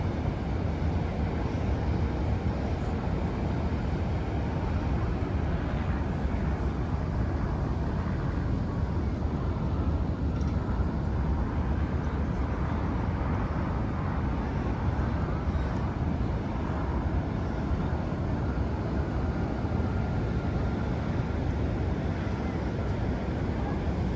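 Ocean surf breaking and washing ashore: a steady, continuous rush of waves with no pauses.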